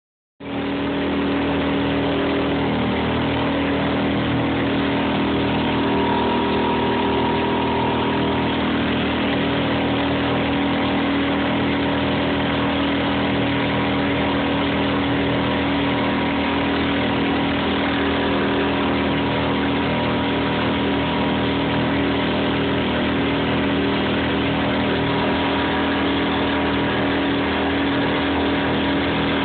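Small open boat's outboard motor running steadily under way, a constant drone that sets in about half a second in and holds its pitch.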